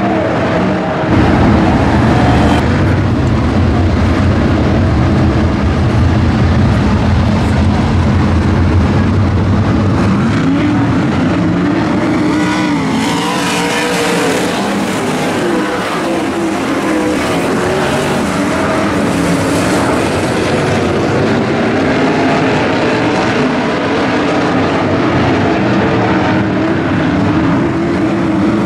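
A pack of non-wing sprint cars racing on a dirt oval, their engines running loud and continuously. The engine pitch rises and falls as cars pass close by around the middle.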